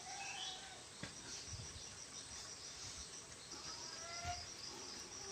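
Faint, steady chirring of insects such as crickets, with a couple of faint short calls near the start and about four seconds in.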